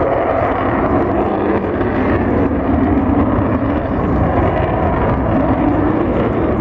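Avro Vulcan XH558's four Rolls-Royce Olympus turbojets, a loud, steady jet roar as the bomber flies its display pass.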